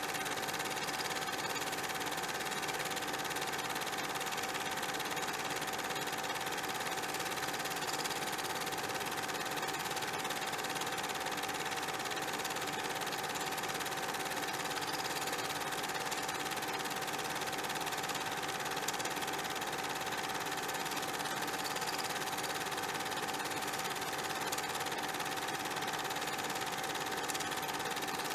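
A steady, unchanging machine-like whirr: an even hiss with a constant high hum running through it and no rhythm changes.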